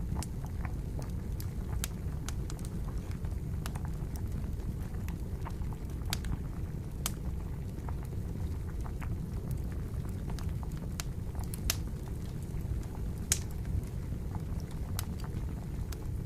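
Wood fire crackling with irregular sharp pops, over a steady low bubbling of water at a boil.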